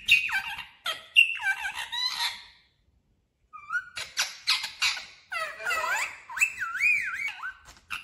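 Rose-ringed parakeet making squeaky calls with sliding pitch, in short runs, with a pause of about a second partway through and a wavering, up-and-down call near the end.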